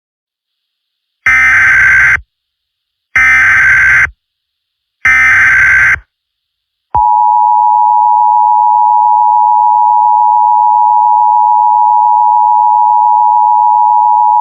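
Emergency Alert System signal: three harsh one-second bursts of SAME header data, then about halfway through the two-tone attention signal starts, a steady dual tone just under 1 kHz. Together they open an emergency alert broadcast.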